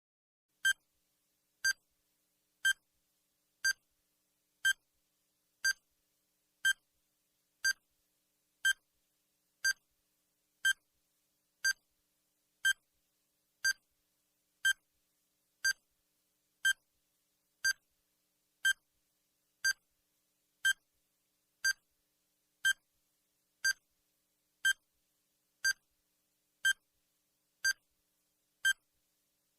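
Countdown timer sound effect: a short electronic beep once a second, every beep at the same pitch, with silence between.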